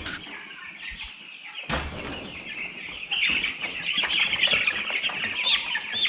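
A brooder full of Cobb 500 broiler chicks peeping, a dense chorus of short high chirps that grows louder about two seconds in. A sharp knock sounds near the start and again just before the chirping swells.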